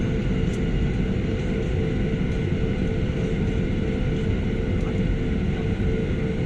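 Airliner's turbine engines running steadily, a constant whine over a dense low rumble.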